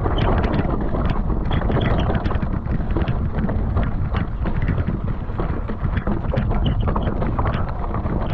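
Wind buffeting the microphone in a steady, loud rumble, with many small clicks and knocks scattered through it.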